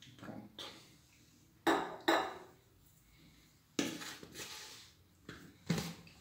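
A metal spoon stirring flour, water and oil into a pizza dough in a plastic mixing bowl: several sharp knocks and clinks against the bowl, with quieter scraping between them.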